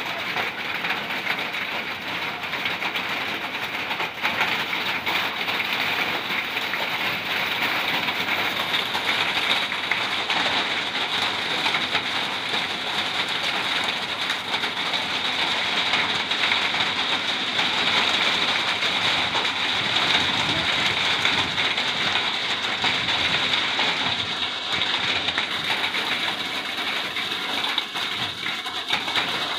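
Heavy rain pouring down onto grass, puddles and a road: a dense, steady hiss.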